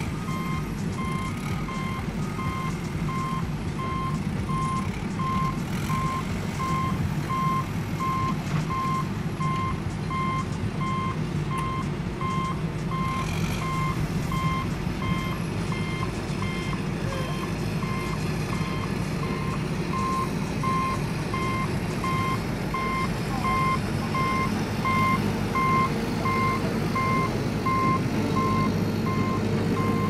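Heavy construction vehicle's reversing alarm beeping at an even pace over the steady low running of its engine.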